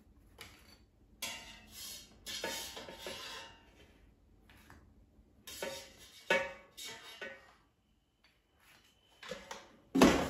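Metal tongs and a spatula clinking and scraping against a nonstick air fryer basket in several short, ringing bursts as mini quiches are lifted out. Near the end, a loud knock as the basket is pushed back into the air fryer.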